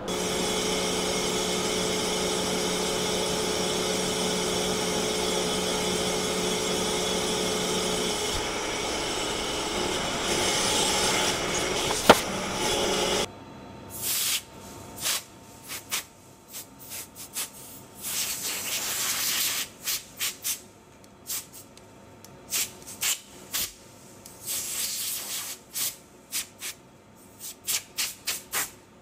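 CNC lathe cutting a large phosphor bronze bearing dry, without coolant: a steady machining sound with a few steady tones, one part of which drops out about eight seconds in, and a single sharp click a little later. After an abrupt change, irregular short scraping and hissing bursts follow while bronze swarf is cleared off the tool turret.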